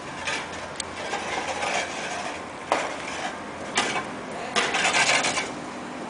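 A machine running steadily, like an engine, with several sharp knocks and a louder burst of clatter around five seconds in.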